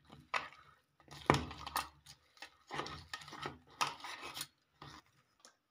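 Boiled potatoes, chopped onion and spices being mashed and mixed by hand in a steel bowl: wet squishing with the fingers scraping and knocking against the metal, in irregular strokes.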